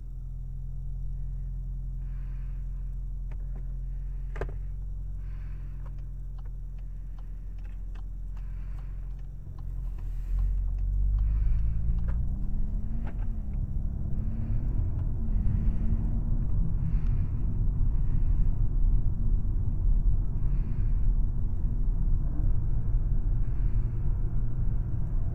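VW Golf R's turbocharged 2.0-litre four-cylinder heard from inside the cabin: idling steadily for about ten seconds, then pulling away and getting louder, its note rising and dropping through gear changes as the car accelerates.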